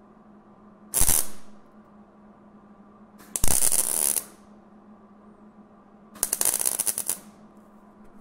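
MIG welder laying three short tack welds, each a burst of crackling arc lasting under a second, tacking a new steel floor pan section into the car body.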